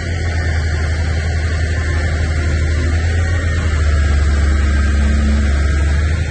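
A heavy engine running steadily with a deep low rumble, getting louder about four seconds in.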